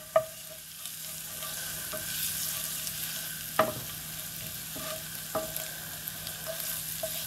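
Minced garlic sizzling in olive oil in a frying pan while a wooden spoon stirs and scrapes through it, with a few light knocks of the spoon against the pan, the most distinct about three and a half and five seconds in.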